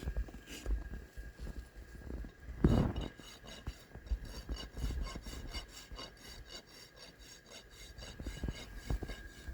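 A hoof rasp filing a horse's hoof wall, taking down the flare, in repeated scraping strokes about two a second. There is one louder knock about three seconds in.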